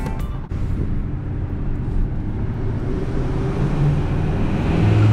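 Ford pickup truck's engine and road noise heard from inside the cab while driving, with a steady low engine hum that grows louder near the end.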